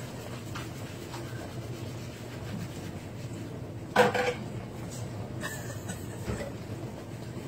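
Faint scuffing and rubbing of a cat's paws scrambling on a laminate floor, with one short sharp sound about four seconds in.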